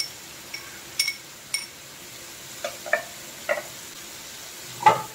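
A metal spoon clinks against a glass bowl about four times in quick succession as chopped dried red chillies are tipped into the pan. It is followed by a few duller knocks, the loudest near the end, over a faint steady sizzle of prawns frying in butter and oil.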